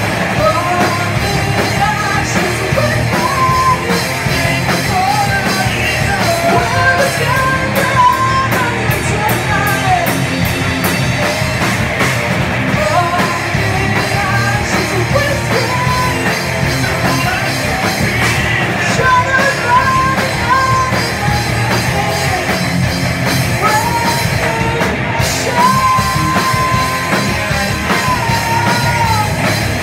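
Live rock band playing: a female singer's lead vocal over distorted electric guitars and a drum kit, loud and steady, with one long held sung note near the end.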